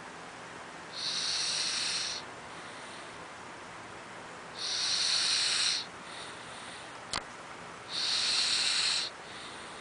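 Loud snoring: three hissing snore breaths, each about a second long and roughly three and a half seconds apart, with a brief click between the second and third.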